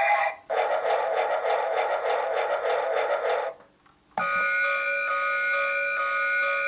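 Toy train's built-in electronic sound chip playing its effects. First comes a fast trilling, bell-like ring for about three seconds; then, after a brief pause, a tinny electronic melody starts about four seconds in.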